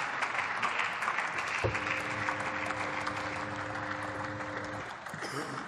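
Applause from a group of parliamentarians clapping after a speech, easing off near the end. A faint steady two-note hum comes in about one and a half seconds in and stops shortly before the end.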